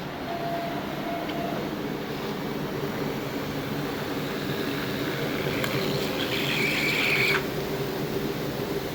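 Automatic fabric cutting machine running with a steady machine hum. A higher-pitched whir joins about six seconds in and cuts off suddenly a second or so later, while the hum carries on.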